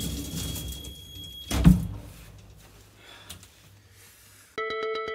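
A door shutting with one loud thump about two seconds in, over a steady low background noise. Near the end, synthesizer music with stepped keyboard-like notes starts abruptly.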